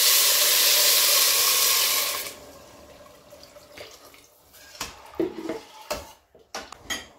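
Water poured from a plastic jug into a hot steel pot of frying lentils and vegetables: a loud rush for about the first two seconds, then a softer trickle. Near the end, a few knocks of a wooden spoon stirring against the pot.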